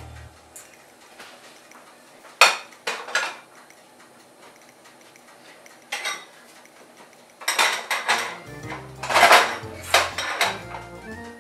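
Small stainless steel saucepans clanking as they are handled and set down on an electric stove's metal coil burners: a few separate knocks in the first half, then a busier run of clatter in the last few seconds.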